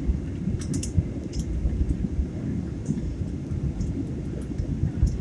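Steady low rumble of an airliner cabin in flight: engine and airflow noise heard from inside the cabin.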